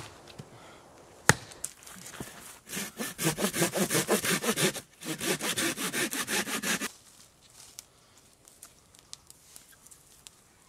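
A small folding hand saw cutting through a branch in quick, even strokes, about four or five a second, in two runs with a short pause between, then stopping. Before the sawing there is a sharp knock at the very start and another a little over a second in, the first from an axe chopping a log.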